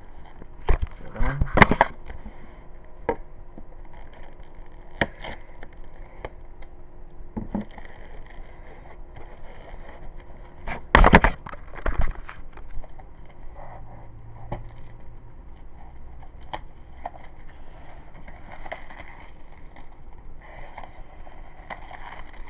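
Plastic DVD case being handled and opened: scattered sharp clicks and cracks over faint rustling, loudest about a second in and again around eleven and twelve seconds.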